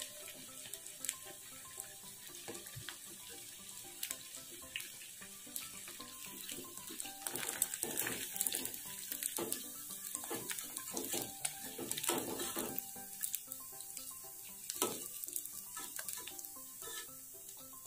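Tofu-and-vermicelli balls deep-frying in a small pan of hot oil: a steady sizzling hiss. Many sharp clicks and pops run through it, thickest in the middle, as the balls are turned and lifted out with a metal utensil.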